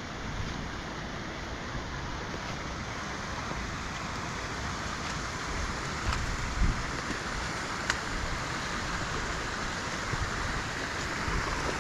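Steady rush of a rain-swollen burn running wide and fast, with a low rumble of wind on the microphone and a few soft thumps partway through.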